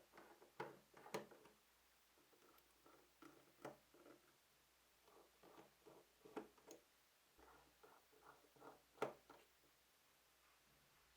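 Faint, irregular clicks and light taps of small tools and metal parts on a Nikon FM2n film camera body being taken apart at the front plate, with one sharper click about nine seconds in.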